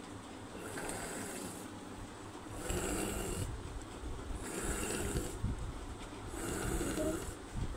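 A woman's loud, snoring breaths, about one every two seconds. This is stertorous breathing, typical of the recovery phase after a generalized tonic-clonic seizure.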